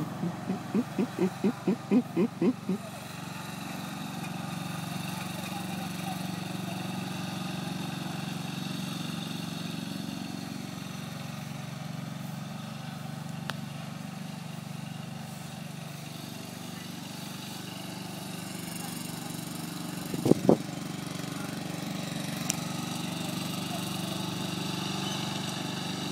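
Ride-on lawn mower engine running steadily as the mower drives across the grass. In the first few seconds there is a quick run of about ten short pulses, roughly four a second, and a brief loud burst comes about twenty seconds in.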